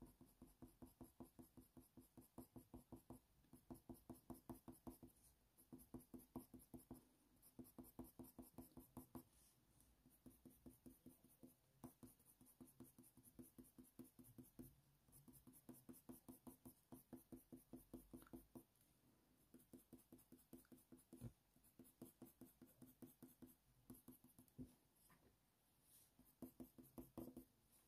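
Faint scratching of a Faber-Castell Polychromos coloured pencil flicking short fur strokes on hot-press watercolour paper, in runs of about four strokes a second broken by short pauses.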